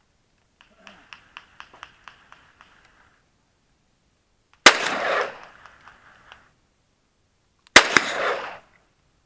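Two AK-47 rifle shots about three seconds apart, each a sharp crack followed by a rolling echo off the hillside; the second comes as a doubled crack as the hit target bursts into a white cloud. A run of faint ticks comes first.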